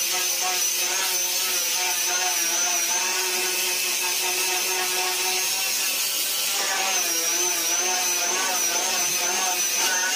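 Electric angle grinder running with its disc pressed against a steel car bonnet, grinding the paint off down to bare metal. Steady high whine that wavers slightly in pitch.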